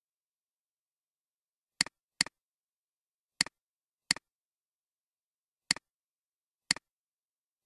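Computer mouse button clicks: seven sharp clicks at irregular intervals, each a quick press-and-release double tick, between dead silence.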